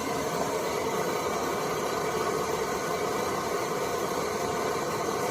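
Vintage liquid-fuel camp stove burners burning with a steady, even rush of flame, while an Optimus stove sits at the priming stage, its priming fuel burning in the cup below the burner.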